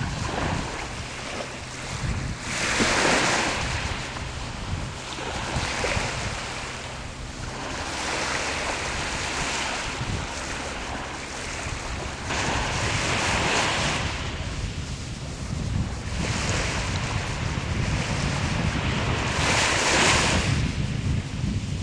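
Small waves breaking and washing up the shore, each surge swelling and fading about every three to four seconds, with a low rumble of wind on the microphone.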